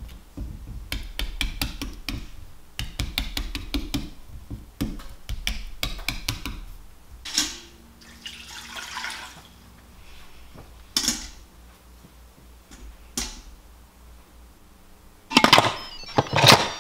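A fork jabbing into raw sweet potatoes: a fast run of sharp clicks for about seven seconds. Then the potatoes and water go into an Instant Pot, with a soft rushing pour and a few knocks. Near the end comes a loud metallic clatter as the pressure-cooker lid is set on and turned shut.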